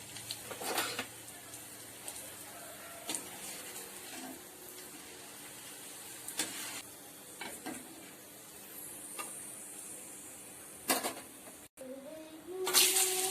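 Sun-dried rice vathal (vadagam) frying in hot oil in a kadai: a steady sizzle, with occasional sharp clinks and knocks of a ladle against the pan. The sizzle grows louder near the end.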